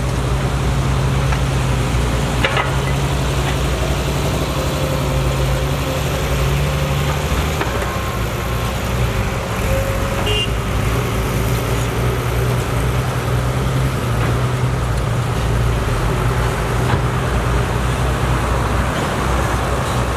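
Diesel engines of a Cat 312C hydraulic excavator and a dump truck running steadily while the excavator loads soil into the truck, with a steady hiss over the engine hum. One part of the engine note drops out about seven seconds in.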